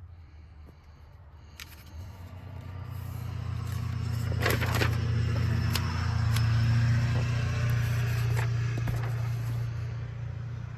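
Low rumble of a passing motor vehicle, building over a few seconds, peaking a little past the middle and then fading, with a few sharp clicks near the middle.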